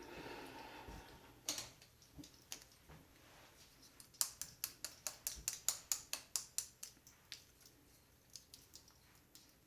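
Crisp close-up clicks: a few scattered ones, then a quick even run of about five a second from about four to seven seconds in.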